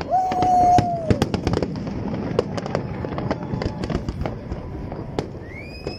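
Aerial fireworks display: rapid crackling and popping of many shells bursting. Near the start a loud whistling tone holds for about a second and then drops away, and a shorter rising whistle comes near the end.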